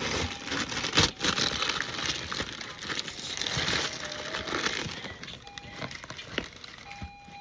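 Paper or plastic packaging rustling and crinkling as a present is unwrapped and handled, with a sharp knock about a second in.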